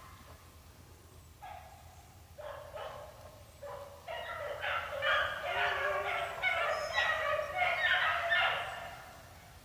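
A pack of beagles baying as they run a rabbit's track, several voices overlapping: scattered bays at first, swelling into a steady chorus about four seconds in, then easing off near the end.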